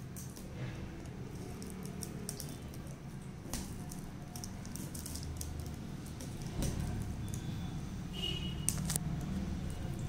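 A cardboard box being handled while its packing tape is slit along the seams with a small pointed cutter: scraping and rustling with scattered light clicks and taps.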